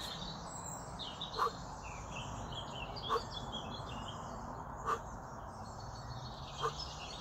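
Small birds chirping and twittering, with a short sharp tick about every second and three-quarters.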